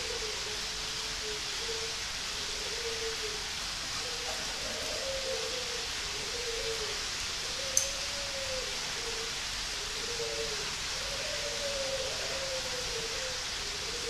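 Doves cooing in the aviary, a string of short, wavering coos repeating throughout, under a steady hiss. One sharp click sounds about eight seconds in.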